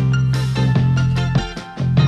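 Instrumental music with plucked guitar notes over a steady bass line.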